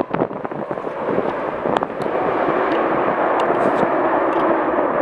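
Jet airliner engine noise with gusty wind buffeting the microphone, the sound growing steadier from about two seconds in.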